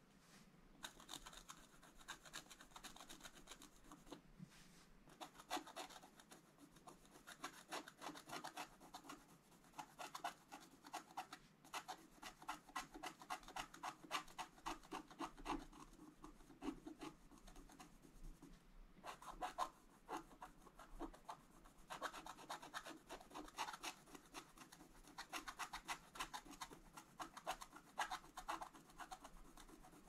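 Wooden stylus scratching the black coating off a scratch-art sheet: runs of rapid, short scraping strokes with brief pauses between them.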